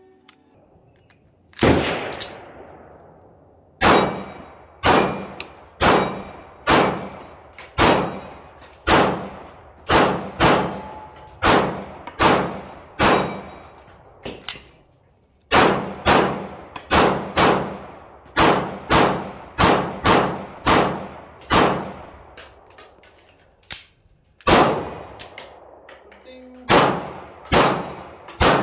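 Taurus GX4 9mm sub-compact pistol firing in strings of sharp, ringing shots about one a second, with two short pauses between strings.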